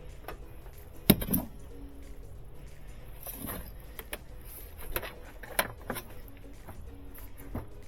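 Metallic clinks, knocks and rattles of hand tools and parts being handled while working on a washing machine's water inlet valve. The loudest is a sharp double knock about a second in, followed by several lighter clicks.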